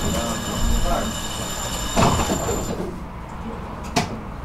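Tram running on its rails, with a steady high whine that cuts off about two and a half seconds in. A knock comes about two seconds in and a sharp click near the end.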